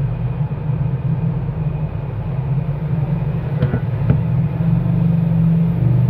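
A steady low hum, with two faint clicks a little past halfway.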